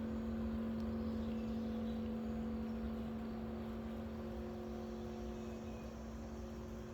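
A vehicle engine running with a steady, unchanging low hum over a rumble, growing slightly quieter near the end.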